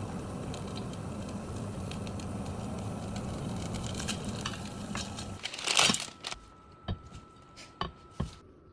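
Instant-noodle cooking sounds: a steady hiss for about five seconds, then a short loud crinkle of a plastic noodle or seasoning packet about six seconds in, followed by a few light clicks.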